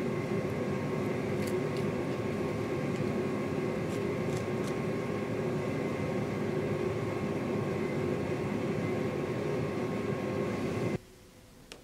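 Steady mechanical hum with several steady tones in it, like a machine running; it cuts off suddenly near the end, leaving near quiet with a faint click.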